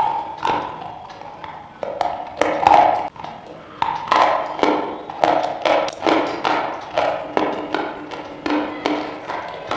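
Close-up chewing of crunchy food, the mouth crunching in a steady rhythm of about two bites a second.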